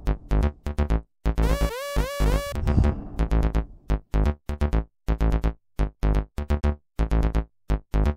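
Electronic background music: a rising synth figure climbing in steps, then short chopped synth chords over deep bass with brief silences between them.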